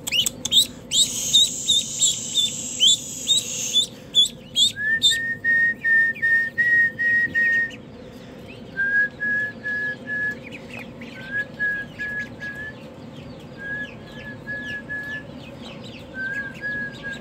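Duckling peeping in rapid, high, falling chirps for about the first four seconds, then going quiet. From about five seconds, runs of soft whistled notes on one level pitch come in five short bursts a second or two apart, with faint peeping of other ducklings behind.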